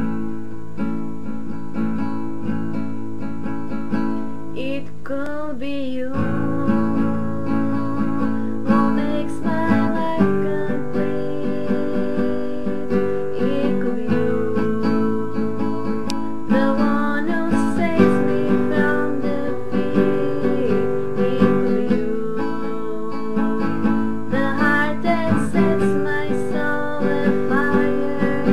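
Music led by a strummed acoustic guitar, with a wavering melody line over the chords.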